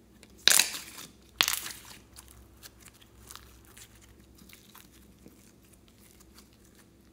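Glossy slime stretched and folded by hand, giving two loud sticky crackling bursts about half a second and a second and a half in, then fainter scattered crackles that thin out.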